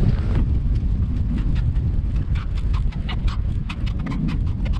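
Wind buffeting the microphone in a steady low rumble, with a quick run of crisp crunches of packed snow starting about a second in and growing denser toward the end.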